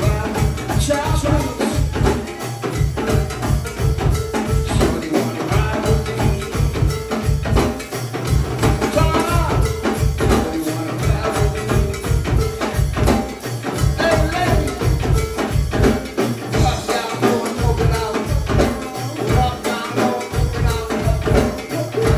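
Live go-go band playing an instrumental groove: steady, busy percussion over a pulsing bass line.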